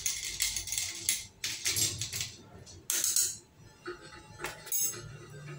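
Bar spoon stirring ice in a glass cocktail glass: a rapid rattle of light clinks that stops about two seconds in, followed by a few single knocks, with background music underneath.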